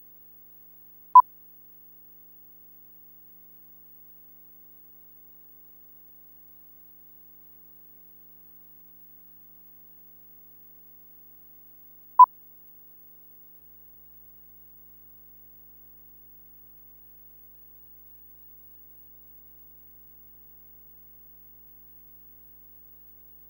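Two short, identical electronic beeps, one about a second in and one about eleven seconds later, each a single pure steady tone; otherwise near silence.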